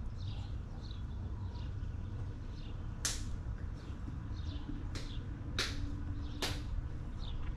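Outdoor ambience: a low steady rumble with small birds chirping now and then, and four sharp clicks between about three and six and a half seconds in.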